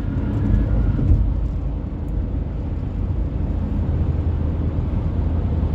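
Steady low road noise inside a car's cabin at highway speed: tyres on the pavement and the engine running.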